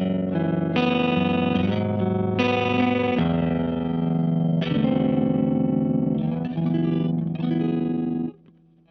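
Yamaha Revstar RSS02T electric guitar playing clean chords through a Space Sounds Cosmic Tremolo pedal, the tremolo pulsing the volume. Chords are struck about three times and left to ring, and the playing cuts off suddenly just before the end.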